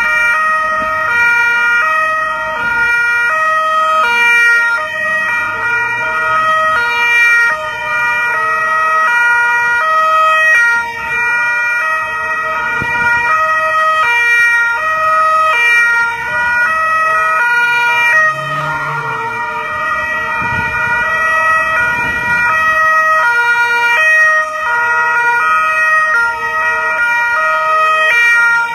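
Italian police cars' two-tone sirens alternating steadily between a high and a low note, with car engines and tyres passing underneath, most clearly about two-thirds of the way through.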